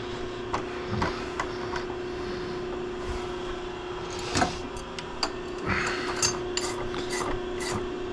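Scattered metal clicks, knocks and a short clatter from handling a drill chuck and hand tools at a vertical milling machine, over a steady hum.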